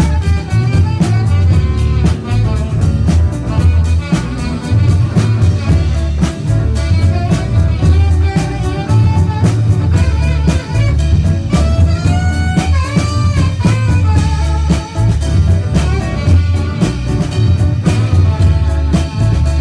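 Live band playing an instrumental on electric guitar, electric bass, drum kit and saxophone, over a steady drum beat and bass line. About twelve seconds in, a lead line bends up and down in pitch.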